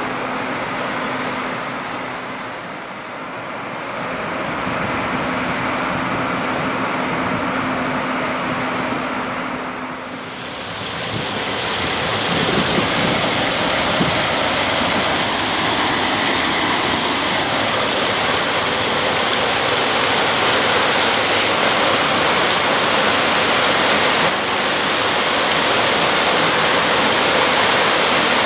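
Steady low hum under a rushing noise. About ten seconds in, a louder, even rushing of water takes over and holds steady, typical of water pouring through a lock's sluices.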